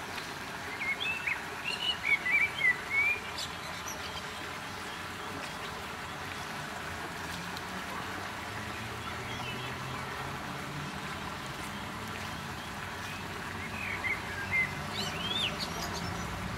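A bird chirping in short quick phrases about a second in and again near the end, over a steady background hiss. A low rumble, like distant traffic, builds from about the middle.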